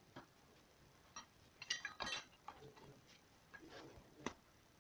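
Hard plastic housing parts of a power tool clicking and knocking as hands press the halves together, a scatter of short clicks with a louder cluster about two seconds in.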